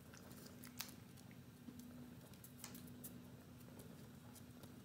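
Faint scattered clicks and taps from a puppy and a cat scrabbling at a paper bag on a cork floor, over a low steady hum.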